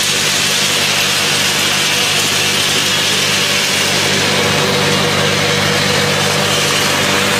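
Roasted peanut red-skin peeling machine running steadily: a low machine hum under a steady rushing noise as peeled peanuts pour from its chute into a stainless steel bin.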